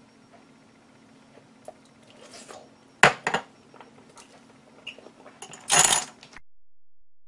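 Porcelain soup spoon clinking down on a china plate: two sharp clinks about three seconds in, after a few light scrapes and taps. Near the end, a louder short clatter as red chopsticks are set down against the plate. A low steady hum runs underneath.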